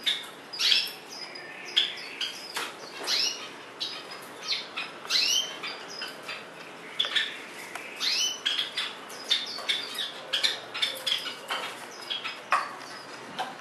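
Swinhoe's white-eye bathing among wet leaves: short, sharp chirps that sweep quickly in pitch, repeated irregularly, mixed with brief fluttering of its wings.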